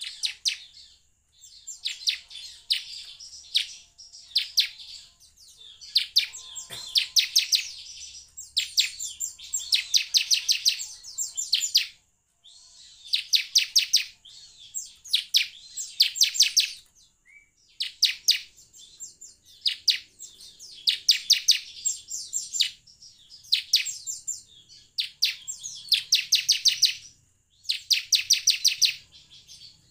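Bar-winged prinia (ciblek) song: short phrases of fast, high, rapidly repeated chirping notes, one after another with brief pauses between them.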